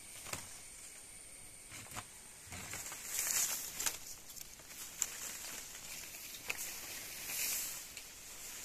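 Leaves rustling in two bursts, with a few sharp clicks and snaps, as a long picking pole is worked into the branches of a rambutan tree.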